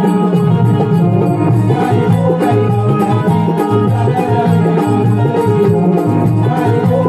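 Instrumental passage of Konkan Naman folk music: held melody notes over a steady, repeating drum rhythm, with no singing.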